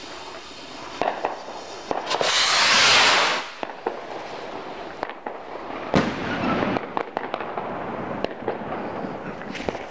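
Fireworks: a few sharp cracks, then a loud rushing whoosh of a firework shot climbing about two seconds in. About six seconds in comes a sharp bang, followed by scattered pops and crackles.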